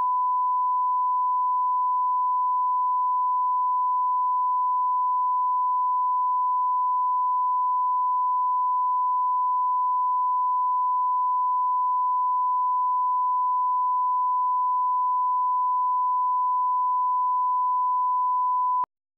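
Broadcast line-up tone: a single steady 1 kHz sine tone, the level reference played with colour bars at the head of a programme tape. It cuts off suddenly near the end.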